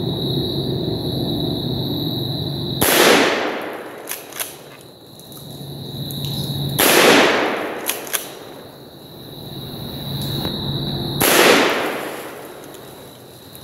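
Benelli Nova 12-gauge pump shotgun fired three times, about four seconds apart, each shot followed by a long rolling echo. After each of the first two shots, the pump action is racked with two quick clicks.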